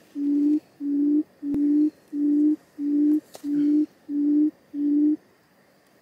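A low, steady hooting note repeated eight times at an even pace, about three every two seconds, each note under half a second long; the series stops about five seconds in.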